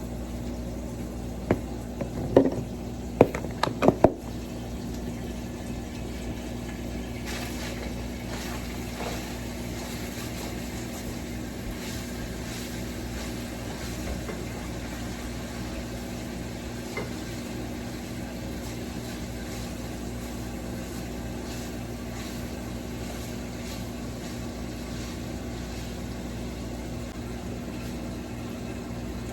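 Several sharp clanks of cookware in the first four seconds, then a steady hum and low hiss of a pot cooking on the stove.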